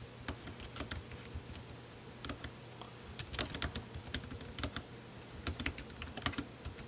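Typing on a Logitech K380 wireless keyboard: irregular key clicks, a few a second, over a faint steady low hum.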